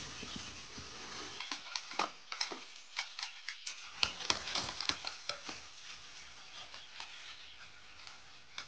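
Bamboo stalks and dry leaves rustling, with irregular sharp cracks and snaps, as a bamboo pole is cut and pulled out of a thicket.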